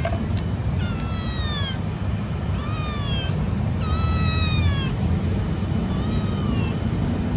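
Young calico kitten meowing four times, each meow falling in pitch, about a second apart, over a steady low background rumble.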